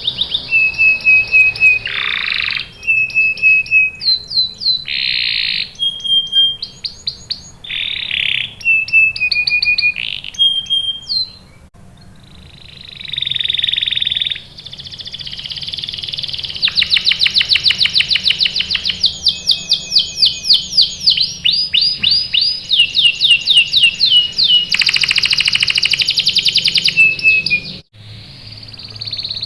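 Domestic canary singing: fast rolling trills and repeated high whistled notes, phrase after phrase, with a short quieter lull about halfway.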